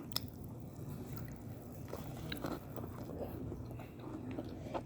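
Quiet close-up eating sounds, with faint chewing and a few small crunches and clicks scattered through.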